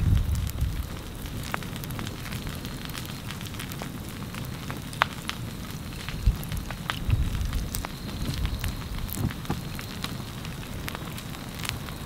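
Ferns and grass burning where a lava flow reaches them: scattered sharp crackles and pops over a low rushing noise.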